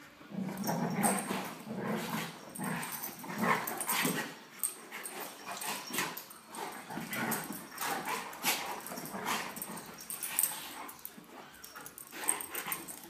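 Alaskan Malamute puppy and young golden retriever wrestling and biting at each other, vocalizing in short, irregular bursts of yips, whines and barks throughout.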